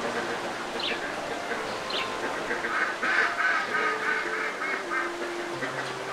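Animal calls: a few short high chirps, and a run of quick repeated calls in the middle.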